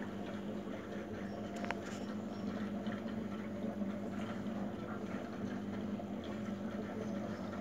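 Aquarium pump humming steadily, a low, even drone with several fixed pitches.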